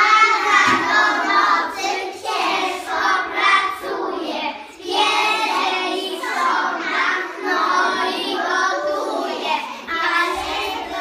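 A group of preschool children singing a song together, phrase after phrase with short breaks between.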